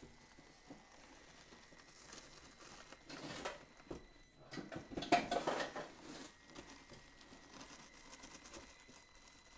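Traxxas TRX-4M micro RC crawler climbing rough, hard foam rock: its tyres crackle and scrape over the surface, with louder scrabbling clusters about three seconds in and again around five to six seconds in.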